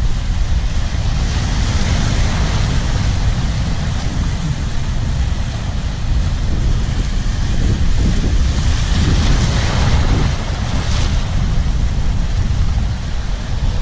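Sea surf breaking and washing over shoreline rocks, with strong wind buffeting the microphone in a steady low rumble. The hiss of the wash swells about a second in and again from about eight to ten seconds in.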